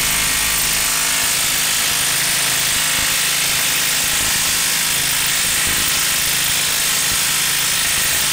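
Makita XWT11 18V brushless half-inch impact wrench running steadily under load, hammering as it turns a screw-tip wood auger bit in a log.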